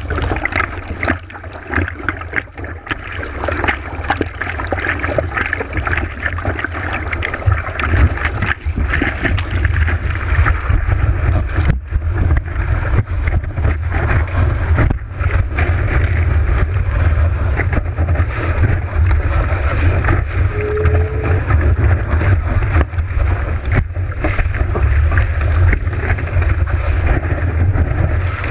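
Seawater rushing and splashing over a surfboard with a GoPro on its nose, under heavy low wind buffeting on the microphone. It is more broken at first while the surfer paddles, then louder and steadier for the rest as the board rides the wave.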